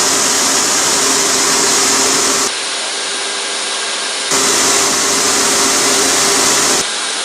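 Leister industrial hot-air blower running: a steady rush of air with a motor hum. The airflow switches abruptly between louder, hissier spells and quieter ones, loud for the first two and a half seconds and again from about four seconds in to near the end.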